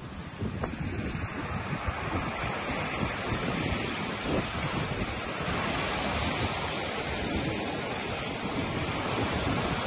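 Small ocean waves breaking and washing up a sandy beach in a steady hiss, with wind buffeting the microphone in low rumbles.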